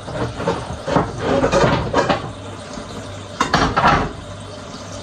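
Kitchen clatter: dishes, pans and utensils clinking and knocking as they are handled, in two busier spells.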